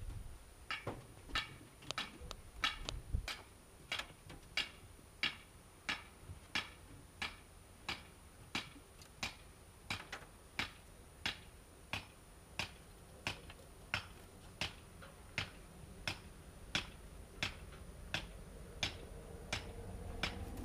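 Rabbits chewing fresh greens close to the microphone: crisp, evenly spaced crunching clicks, about one and a half a second.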